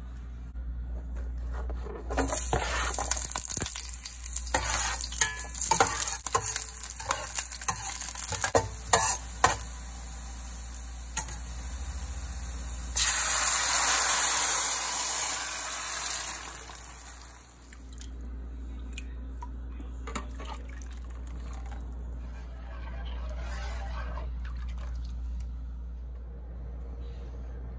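Onion, garlic and dried chile frying in hot oil in an enamelware pot, with irregular crackling and spattering. About 13 seconds in, blended tomato sauce is poured into the hot oil with a loud sizzle that dies away over a few seconds. After that the sauce is stirred and cooks quietly.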